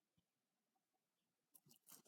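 Near silence, then a short burst of rustling and clicking near the end.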